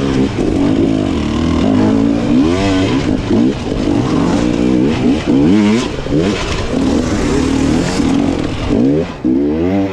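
Off-road dirt bike engine revving hard, the throttle worked on and off so the pitch rises and falls over and over.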